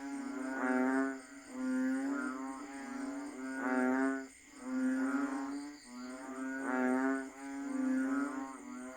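Chorus of banded bullfrogs (Asian painted frogs), several calling at once with overlapping, pitched calls about a second long, one after another with brief dips between.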